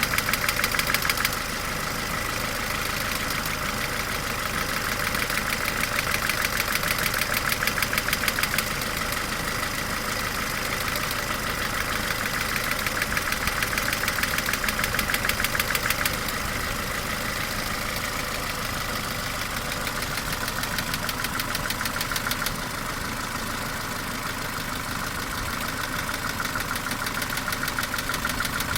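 Mercedes-Benz A-Class W168 1.6-litre four-cylinder petrol engine running at idle with fast, even clacking on top of valve-train ticking. The clacking grows louder and falls back every several seconds. It is the strong periodic clacking whose cause the owner is trying to find, on an 18-year-old engine with about 150,000 km.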